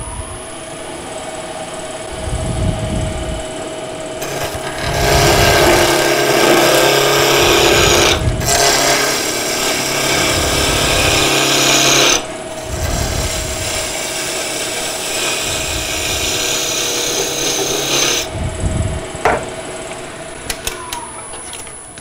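A wood lathe runs with a steady hum while a bowl gouge cuts a spinning wooden blank, turning it down to diameter. The cutting is a loud scraping hiss that starts about two seconds in and is heaviest in the first half, with a brief break. It is lighter after that and stops a few seconds before the end.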